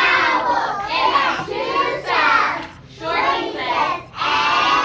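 A child's voice singing a phonetics warm-up, chanting English letter sounds in short phrases with brief pauses between them.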